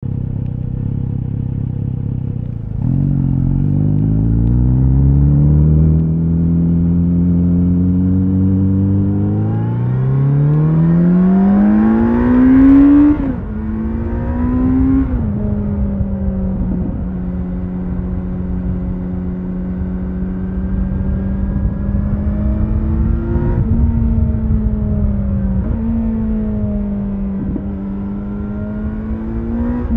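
Kawasaki Z900RS SE's 948 cc inline-four engine accelerating on the road. It runs low for the first few seconds, then its pitch climbs through the revs, rising steeply to a loud peak about halfway. Two upshifts drop the pitch, after which it settles at a steady cruise with a few small throttle changes and gear changes near the end.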